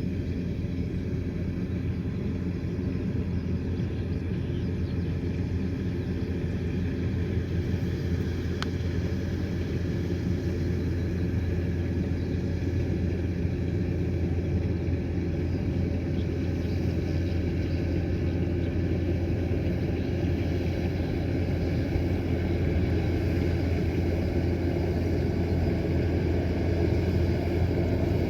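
Kubota combine harvester's diesel engine and threshing machinery running steadily in a low, even drone, growing gradually louder.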